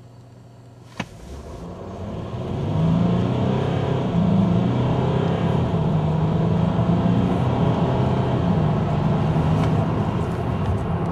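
2011 Mercedes-Benz E350 Bluetec's turbocharged 3.0-litre V6 diesel, heard from the cabin, idling quietly, then pulling hard at full throttle from a standstill in a 0–60 mph run. There is a sharp click about a second in. The engine gets louder over the next two seconds and stays loud as the seven-speed automatic shifts up.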